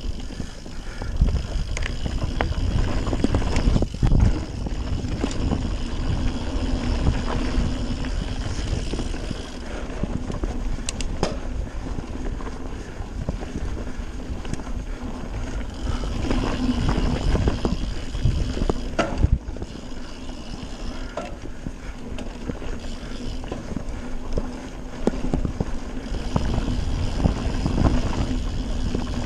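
Radon Swoop 170 mountain bike rolling fast down a dirt trail, with tyre noise, drivetrain rattle and wind buffeting the camera microphone. A few sharp knocks come through as the bike hits bumps.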